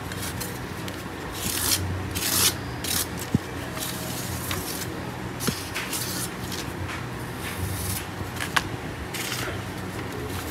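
Kitchen knife blade drawn again and again along the edge of a strip of corrugated cardboard, a series of uneven scraping strokes. This is deburring: it takes off the burr left on the edge by a 4000-grit whetstone.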